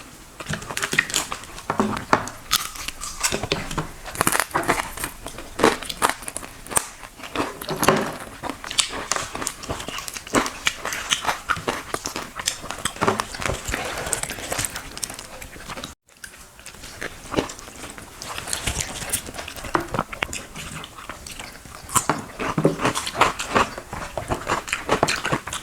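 Close-miked eating: a person chewing and biting through a meal of water rice and fried fish, with many short, irregular crunches and mouth clicks. The sound drops out briefly a little past halfway, at an edit.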